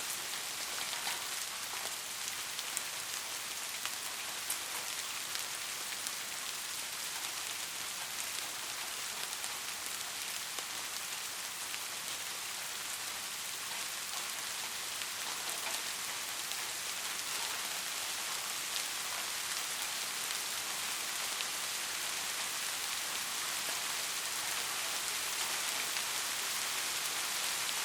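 Steady rain falling on a roof: an even hiss with the ticks of single drops, getting a little louder toward the end. No thunder.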